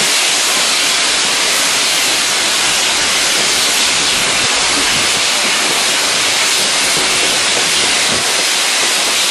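Steady loud hiss of a 1943 Baldwin AC16 steam locomotive hauling its train, heard from an open carriage window behind the engine.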